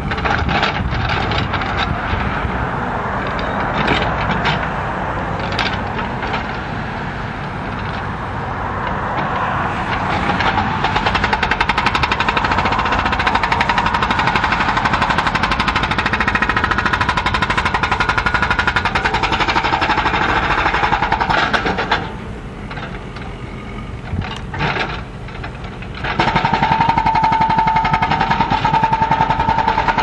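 Hydraulic hammer on a Caterpillar backhoe loader's boom pounding old concrete in rapid, continuous blows over the machine's running diesel engine. The hammering breaks off for about four seconds two-thirds of the way through, then starts again.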